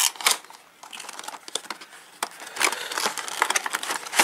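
Cardboard model-train box being opened and handled: an end flap pulled open with crinkling cardboard rustles and scattered small clicks and taps, the sharpest just after the start and near the end.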